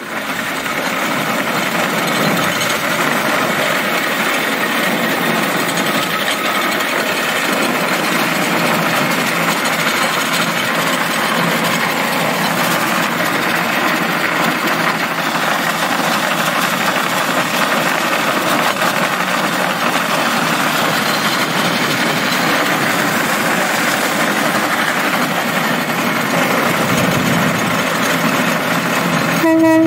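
Rail cart running along the track: a steady, noisy rumble of steel wheels on the rails, fading in over the first second.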